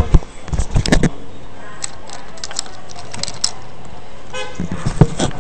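Plastic dolls handled and knocked about close to a laptop microphone: a few loud knocks in the first second and again near the end, scattered clicks between, and a short pitched sound about four and a half seconds in.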